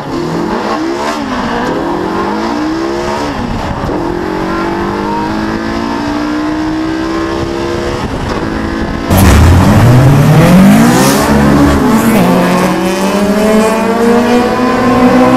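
Honda B-series four-cylinder engine under full-throttle acceleration, its pitch climbing through the gears and dropping at each shift. About nine seconds in the sound jumps abruptly louder and the engine sweeps up again through several gears.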